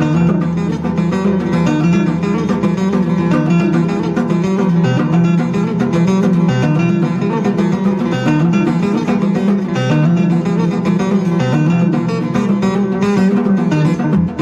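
Instrumental background music with a busy plucked-string part and a steady, even loudness.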